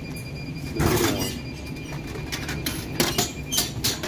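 Vending machine dropping a drink into its pickup tray: one loud clunk about a second in, over a faint steady high tone. Near the end come several sharp knocks and clatter as the drink is taken out through the flap.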